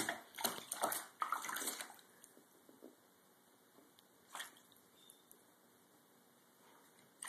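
A cat's paw splashing in shallow bathtub water as it swipes at a goldfish. There is a quick cluster of splashes and sloshes in the first two seconds, then one more splash about four seconds in.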